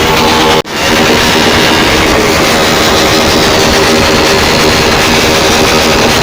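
Motorcycle engines running loudly and steadily, with a brief cut-out of the sound just over half a second in.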